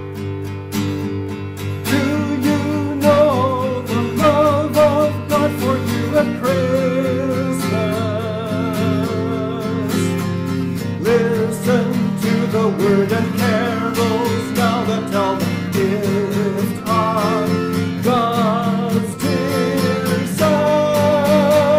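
Music: a voice singing with vibrato over strummed guitar chords.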